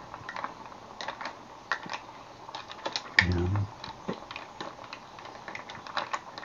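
Mussel shells clicking and clattering against each other and the pot as they are stirred with a wooden spatula: irregular light clicks. A short grunt or syllable of voice about three seconds in.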